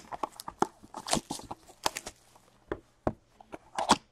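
Hands tearing the wrapping off a cardboard box of trading cards, a Topps Archives Signature Series box, and handling the box: a run of irregular crinkles, rips and taps, the loudest just before the end.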